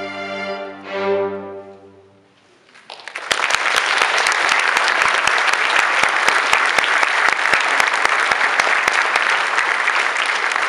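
A string orchestra of violins and cellos sounds its last chord, swelling about a second in and then fading away. After a brief lull the audience breaks into applause, which is the loudest part and keeps going.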